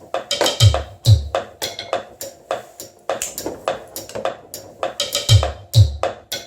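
Mechanical acoustic beat sequencer playing a looping percussion pattern: rapid clattering knocks and wood-block-like clicks, with a pair of deep kick-drum thumps that comes round about every four and a half seconds.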